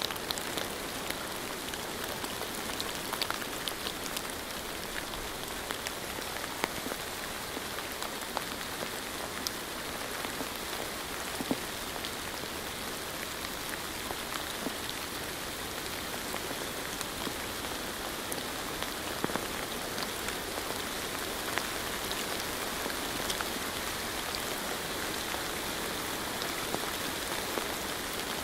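Steady rain with many individual drops pattering on a surface, an even hiss dotted with scattered sharp drop ticks.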